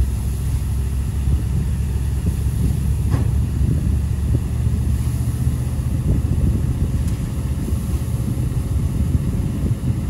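GAZ dump truck's engine running steadily, mixed with wind buffeting the microphone. A single short knock sounds about three seconds in.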